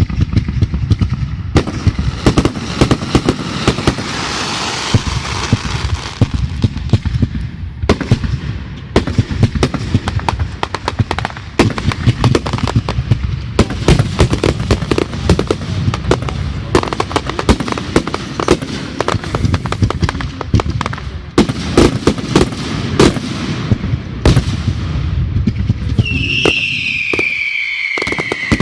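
Fireworks going off in a dense barrage of rapid bangs, pops and crackles. Near the end a whistle glides down in pitch.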